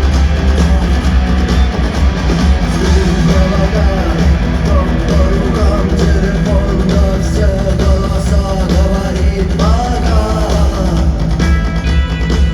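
A live rock band playing, with heavy bass, drums and guitar; singing comes in over it about three seconds in.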